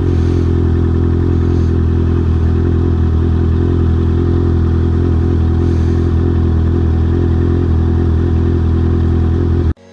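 Honda CB650R's inline-four engine running through an R11 aftermarket full exhaust, at a steady, unchanging pitch. It cuts off suddenly near the end.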